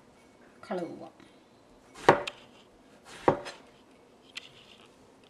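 Two sharp knife chops through eggplant onto a plastic cutting board, a little over a second apart, followed by a faint click near the end.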